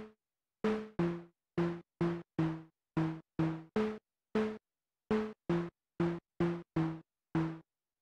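Behringer UB-Xa analog polyphonic synthesizer playing a short, percussive plucked preset: staccato notes doubled in octaves, about two a second, moving back and forth between two pitches. Each note starts sharply and dies away quickly into silence, and the notes stop shortly before the end.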